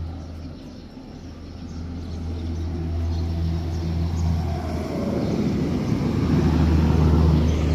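A motor vehicle's engine with a low steady hum, growing louder over several seconds.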